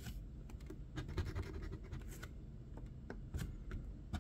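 A metal scratcher coin scraping the latex coating off a paper scratch-off lottery ticket in short, irregular strokes.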